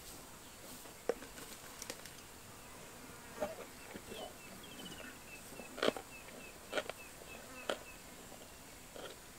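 Quiet bush sounds: a run of rapid, high, slightly falling chirps through the middle, over scattered sharp clicks and cracks, the loudest about six seconds in.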